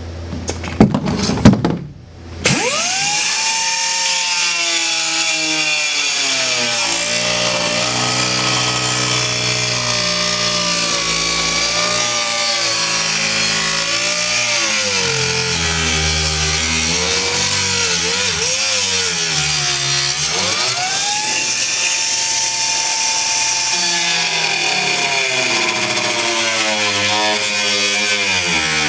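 Pneumatic cut-off tool with a small abrasive disc cutting through a boat's fibreglass seat base. After a brief loud burst at the start, it settles into a steady whine over air hiss. The whine's pitch sags and wavers as the disc bites into the cut, rises back up about twenty seconds in as the load eases, then drops again near the end.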